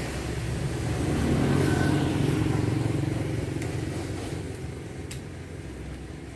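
Low engine rumble of a passing motor vehicle, fading away, with a light click near the end.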